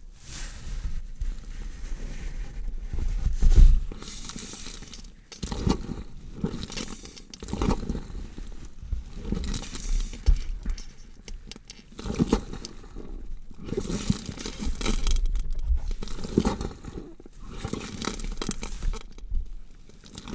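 Horror sound effect: a run of irregular, rough noisy bursts, some carrying a deep rumble, loudest about three and a half seconds in.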